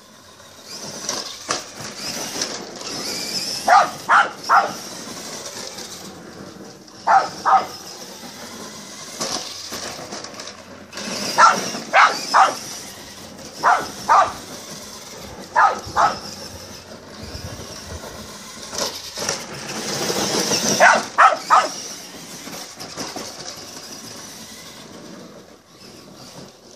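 Electric Tamiya Super Clod Buster RC monster truck whining and crunching over gravel, while a dog barks in quick groups of two or three, six times or so.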